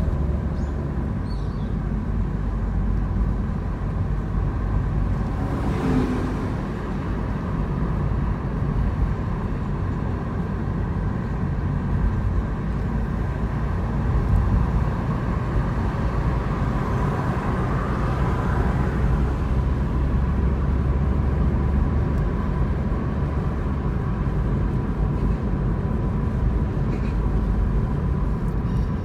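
Car driving: a steady low rumble of engine and road noise, with a faint steady high tone running through it and a brief burst of noise about six seconds in.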